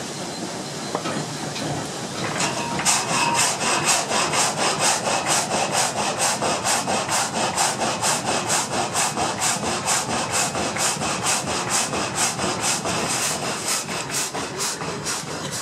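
Water-wheel-driven single-blade frame saw (Venetian sawmill) running. About two and a half seconds in it starts cutting the plank, a steady rasping sawing in rapid, even strokes.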